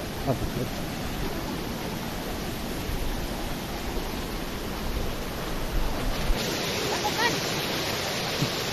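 Steady rush of water from a cascading waterfall and its stream, turning brighter and hissier about six seconds in.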